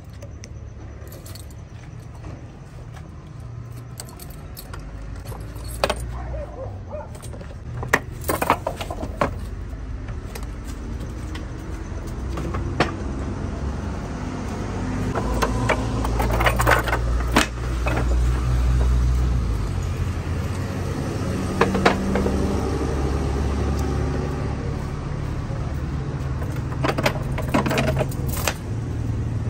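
Keys jangling, with scattered metal clicks and knocks as a padlock, a chain and wooden stall fittings are handled. A low vehicle rumble swells through the middle.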